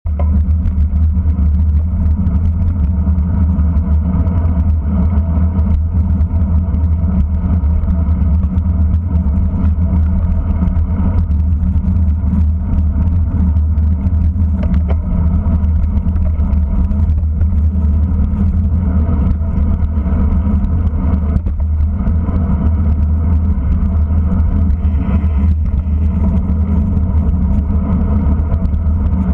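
Steady low rumble of wind buffeting and road vibration picked up by a camera mounted on a racing bicycle at speed.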